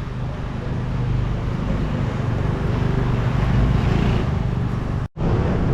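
City street traffic: motor vehicle engine and road noise, a vehicle passing close and growing louder toward the middle. The sound breaks off for an instant near the end.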